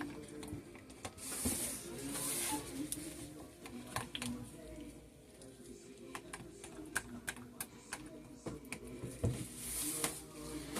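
Scattered light clicks and taps of a utensil against a soap-making container while soap batter is worked, with a couple of brief hissing sounds.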